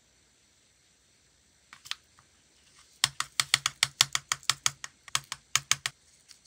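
A small plastic rhinestone case tapped and shaken to tip tiny flat-back rhinestones out onto a marble palette: a couple of clicks about two seconds in, then a rapid run of sharp plastic clicks, about seven a second, for some three seconds.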